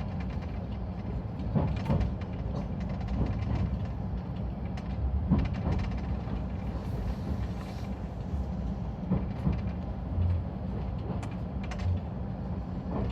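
Running noise inside a moving passenger train carriage: a steady low rumble with scattered short clicks and knocks from the wheels and car body.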